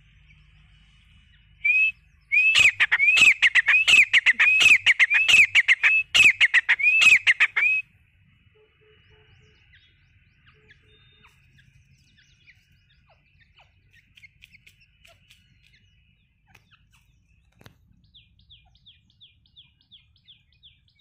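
Grey francolin calling: after a single short note, a loud, shrill run of about a dozen repeated notes at roughly two a second, lasting some five seconds.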